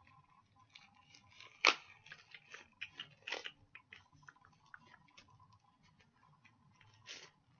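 Small plastic parts and packaging of a bike phone-mount kit being handled: scattered light clicks and crinkly rustling, with a sharper click a little under two seconds in.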